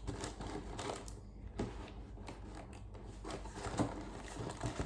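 Light, irregular clicks and rustles of model kit boxes and plastic packaging being handled and moved about.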